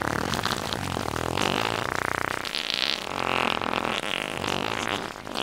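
A long, buzzing, sputtering cartoon fart sound effect from a toy baby doll, going on without a break and shifting in pitch and rasp several times.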